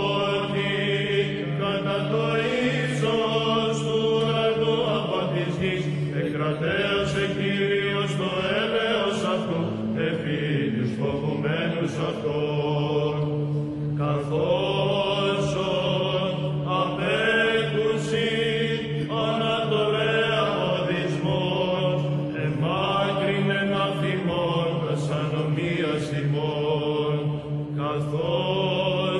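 Greek Orthodox Byzantine-style chant: a sung melismatic line in Greek over a steady held low drone.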